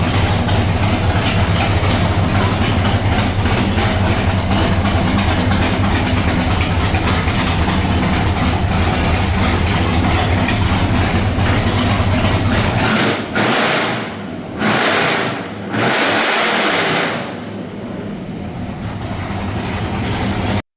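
A car engine running with a steady low rumble. About two-thirds of the way in the rumble drops away, and a few surges of rushing noise follow before the sound cuts off.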